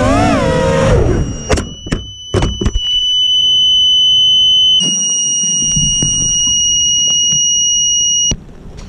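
FPV quadcopter motors whine with wavering pitch, then cut out about a second in as the quad drops. A few knocks follow, then the quad's onboard buzzer sounds one continuous high-pitched tone for about six seconds before stopping suddenly. The pilot suspects the rain shorted the buzzer pins and upset the flight controller.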